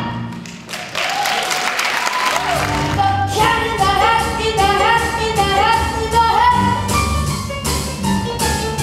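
A stage musical number ends on a held note, followed by a short burst of applause. About three seconds in, the pit band starts the next number with a quick, stepping tune.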